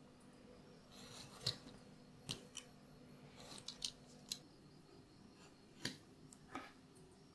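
Craft knife cutting a thin card pattern along a steel ruler on a cutting mat: a faint series of short, sharp slicing scrapes at irregular intervals.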